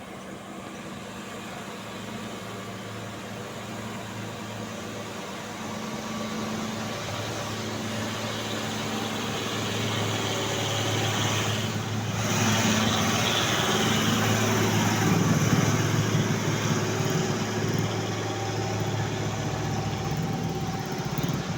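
A road vehicle's engine running with a steady low hum over road noise. It grows gradually louder, is loudest a little past the middle, then eases off slightly, as a vehicle draws near and passes. No horn is heard.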